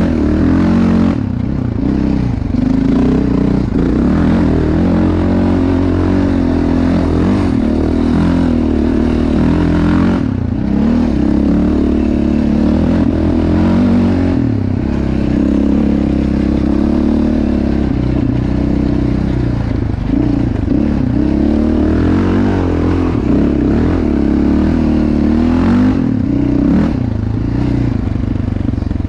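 Yamaha Raptor 700R SE quad's single-cylinder four-stroke engine, breathing through a Yoshimura RS-4 exhaust, running continuously under changing throttle while being ridden, its pitch rising and falling.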